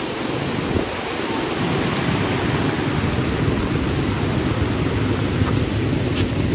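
Steady rushing noise of fast-flowing floodwater, with wind buffeting the microphone in a rough low rumble that grows stronger after the first second or two.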